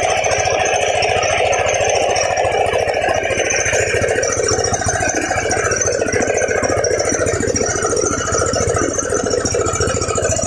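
Engine-driven mobile rice mill running steadily: an even, fast engine beat with machine noise over it.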